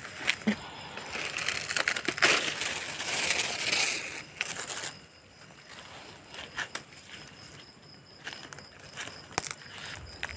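Dry crinkling and rustling, loudest for the first few seconds, then fading to scattered clicks and crackles.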